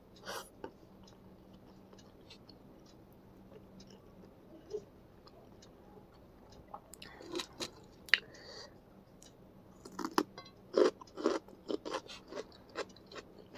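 A person chewing a mouthful of spicy instant noodles close to the microphone: faint, sparse mouth clicks at first, then wet chewing clicks and smacks that come thicker and louder over the last few seconds.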